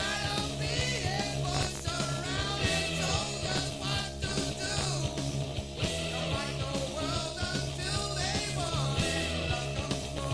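Rock music with singing over a steady bass line.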